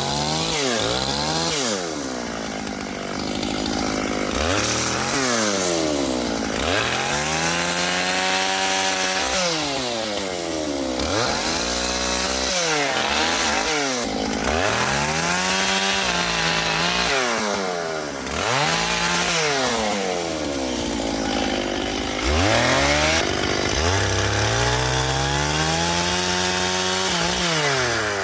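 Chainsaw cutting firewood, the engine revving up and falling back about a dozen times as it goes in and out of the wood.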